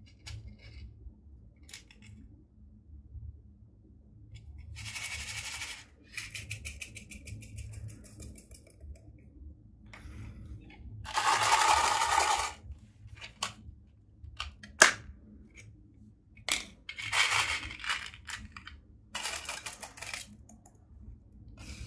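Loose glitter and small plastic sequins poured and shaken out of small plastic tubs into a glass dish. There are several short hissing pours, a quick patter of pieces landing in the middle, and a few sharp clicks.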